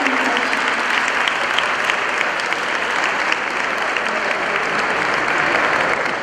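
An audience applauding, with many hands clapping steadily throughout.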